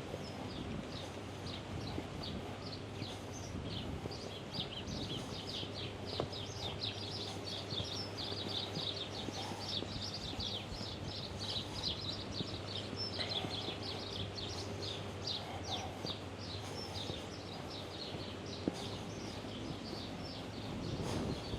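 Small birds chirping: a long run of quick, short high chirps, several a second, over a steady low hum of city background noise.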